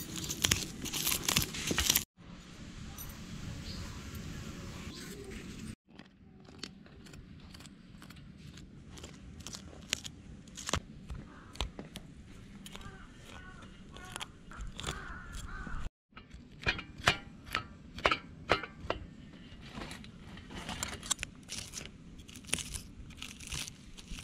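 Knife scraping the scales off a whole hilsa fish on a steel plate: many quick, irregular rasping strokes.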